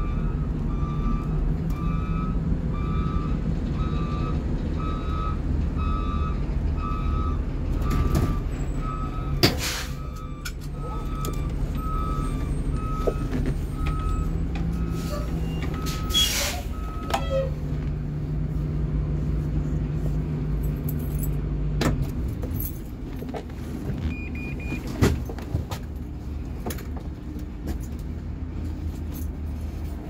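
Blue Bird RE school bus's rear-mounted CNG engine running at low speed while a backup alarm beeps steadily; the beeping stops about halfway through and the engine runs on. A few sharp clicks and short hisses come in between.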